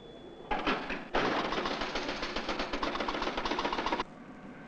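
Fast Draw electromechanical pinball machine in play: a short burst of clicks, then about three seconds of rapid, even mechanical clattering that cuts off suddenly.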